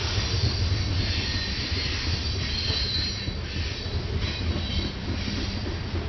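Freight train of covered hopper cars rolling past, a steady low rumble of steel wheels on rail with high wheel squeal that comes and goes.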